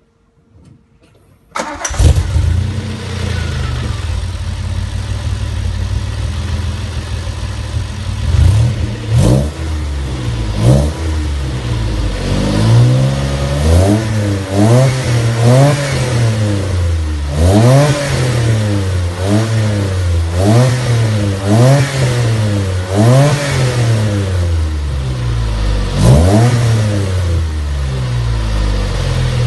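A DeLorean DMC-12's PRV V6 is started through a stainless free-flow exhaust system, cranking and catching about two seconds in. It idles for several seconds, then is revved in a long series of quick throttle blips, each note rising and falling back toward idle.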